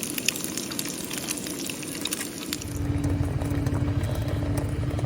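Lunch loaf sizzling in a pan, a crackly hiss with many small pops. About two and a half seconds in it cuts off suddenly, replaced by music with a steady low beat and a held note.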